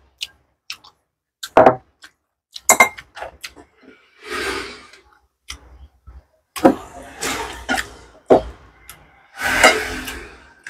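Close-up eating sounds: a china plate set down on the table, then scattered clicks and knocks of a hand and spoon working through rice and fried salted fish on the plates, with bursts of chewing and crunching.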